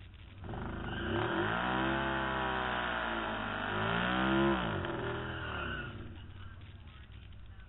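Can-Am Spyder engine revved hard while the machine sits at the drag strip line. The revs climb about half a second in, ease slightly, climb again to their loudest around four and a half seconds, then fall back to idle.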